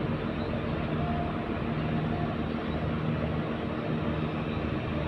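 A fishing boat's diesel engine running steadily, an even low drone with a fast throb underneath.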